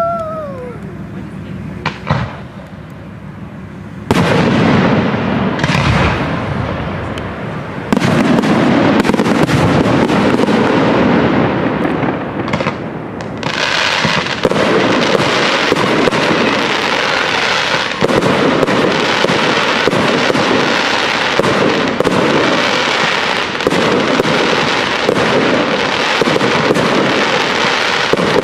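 Fireworks display: after a quieter first few seconds, a dense, continuous barrage of bursting shells and crackle sets in about four seconds in and thickens into rapid, nonstop crackling from about fourteen seconds on.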